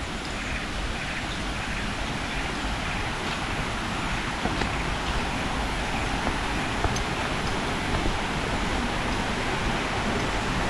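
Steady rush of flowing water, growing gradually louder, with a few faint clicks.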